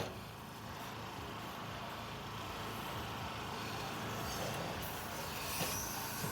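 Faint, steady rumble of a vehicle engine running in the background, with a light tap near the end.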